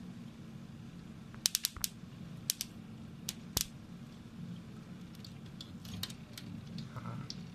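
Crackling and popping from the glowing pool of molten metal in a wire-fed metal 3D printer: sharp irregular clicks, a quick cluster of loud ones in the first seconds, then smaller scattered ticks. A steady low hum from the machine runs underneath.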